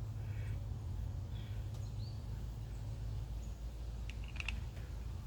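Low steady background hum with a few faint high chirps about two seconds in and light clicks near the end.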